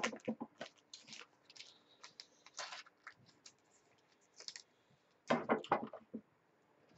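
Trading cards being handled and flipped through by hand: a scatter of light clicks and flicks of card stock, with a louder quick run of taps and clicks about five seconds in.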